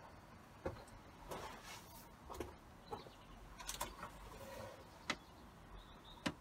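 Scattered light clicks and knocks, about seven short ones with quiet between, the sharpest a little after five seconds in: tools and parts being handled on the engine while its cylinder head is fitted.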